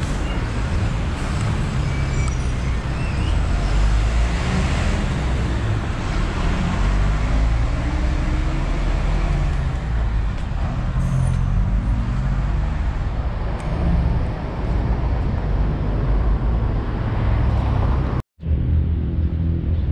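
Road vehicle noise: a steady low engine and tyre rumble with a noisy hiss above it. It cuts out completely for a moment about 18 seconds in, then carries on.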